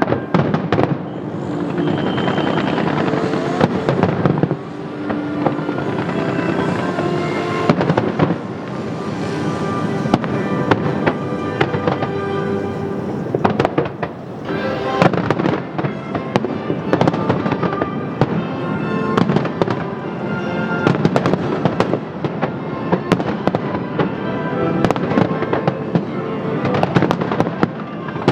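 Aerial fireworks bursting in a dense, irregular run of bangs and crackles over music with sustained notes, the show set to music.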